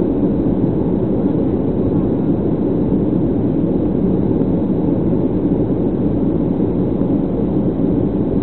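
Steady engine and airflow noise heard inside the passenger cabin of a Boeing 737 in flight, an even low rumble.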